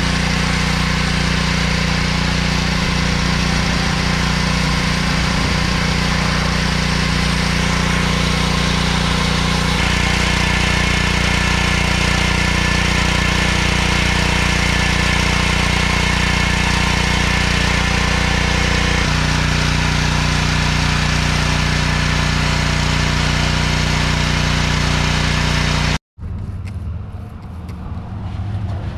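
Small gasoline engine of a pressure washer running steadily, its tone shifting slightly about ten and nineteen seconds in. It cuts off suddenly near the end, and quieter outdoor noise follows.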